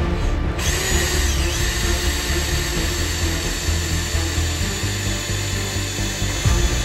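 Electric drill running steadily as it bores a tapping hole into the cast-iron 4G63 engine block, with background music over it.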